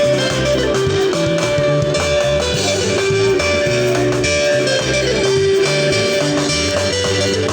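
Band music: electric guitar picking short repeating melodic lines over bass guitar and drums, in a sebene-style groove.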